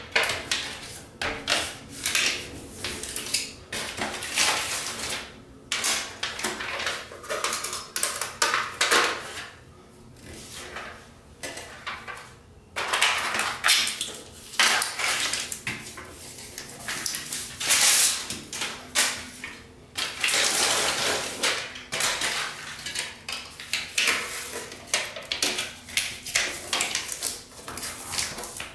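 Silver aluminium foil tape being pulled off the roll, torn and pressed onto ceramic tile, crackling and ripping in irregular bursts with short pauses between strips.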